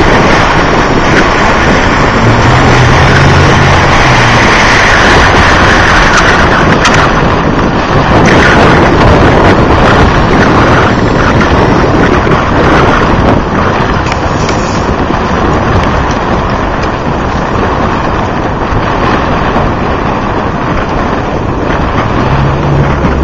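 Strong wind buffeting the microphone: a loud, steady rushing that covers everything else.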